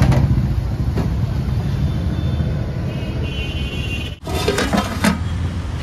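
Road traffic noise: motor vehicle engines running steadily, with a few clattering knocks near the end.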